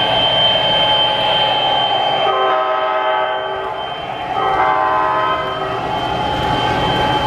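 O-scale three-rail model train running past: the MTH Amtrak F40PH locomotive's onboard sound system gives two horn blasts, each about a second and a half long, over the train's steady running noise on the track.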